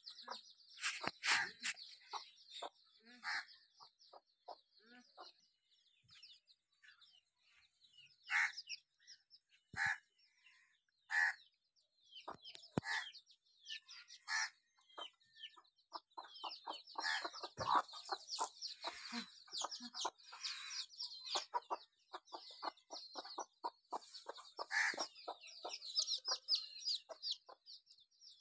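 Brood of domestic chicks peeping in a high, rapid chatter, busiest near the start and through much of the second half, with a hen clucking now and then among them.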